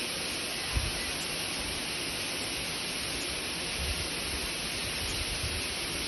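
Waterfall rushing into a stream pool: a steady, even noise of falling water, with a brief low knock about a second in.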